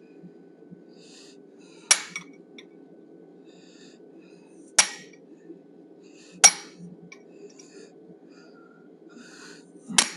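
Hammer blows on a hand-held steel set tool held against a forged steel bison head: four sharp metallic strikes, spaced one to three seconds apart, each ringing briefly. A steady low hum sits underneath.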